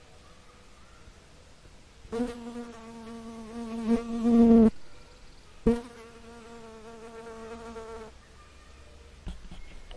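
Fly buzzing, in two steady buzzes of a couple of seconds each; the first swells louder before cutting off, the second starts abruptly a second later.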